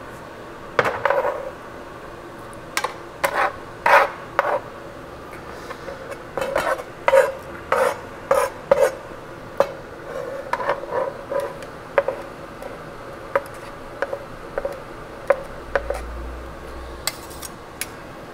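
Metal utensil clinking and scraping against a stainless steel pot and cutting board as shredded chicken is pushed into the pot: a series of irregular clinks and knocks.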